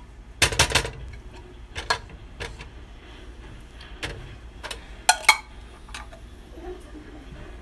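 Kitchen clatter as a can of tomato sauce is emptied into a pot: a handful of sharp metallic knocks and clinks at uneven intervals, the loudest pair about five seconds in.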